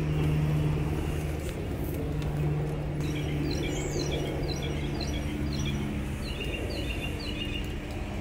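Small birds chirping in a run of short, falling notes from about three seconds in, over a steady low drone.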